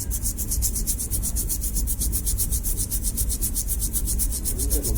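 Hot-air rework station blowing steadily while the reballed CPU chip is fitted onto the phone's board: a continuous airflow noise with a low hum and a fast, even high-pitched pulsing.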